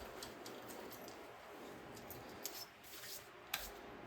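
Faint handling of a bolt being started by hand into an axle cover: soft scraping with a couple of sharp metal clicks, the loudest about three and a half seconds in.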